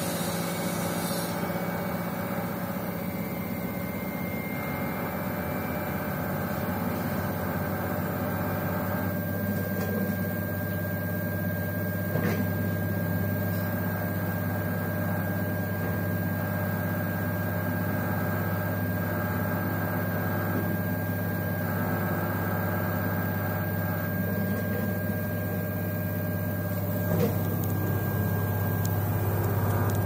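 LG 7 kg direct-drive front-loading washing machine running its spin cycle: a steady deep hum with a constant motor whine above it. A faint higher whine joins about a third of the way in.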